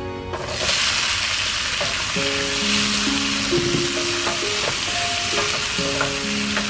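Hot oil sizzling loudly in a frying pan as tomato wedges are stirred in with fried garlic using a wooden spatula; the sizzle starts suddenly under a second in, as the wet tomatoes hit the hot oil.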